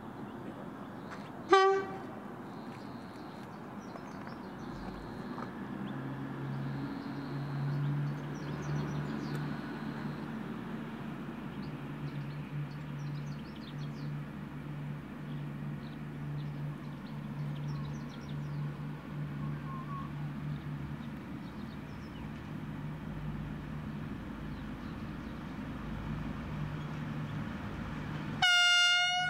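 V/Line VLocity diesel railcar set approaching: a short, low horn toot about a second and a half in, then the steady low drone of its diesel engines growing slowly louder. Near the end comes a louder, higher-pitched horn blast as the railcar nears.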